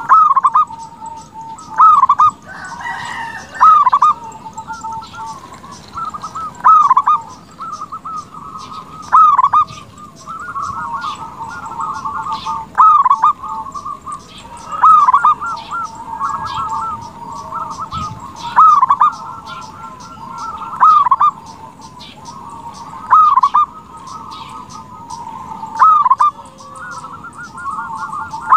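Zebra dove (perkutut) singing its cooing song: a loud, rolling coo repeated every two to three seconds, with softer trilling coos in between.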